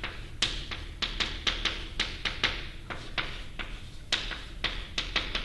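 Chalk tapping and scratching on a blackboard as letters are written: a quick, irregular series of sharp taps, several a second.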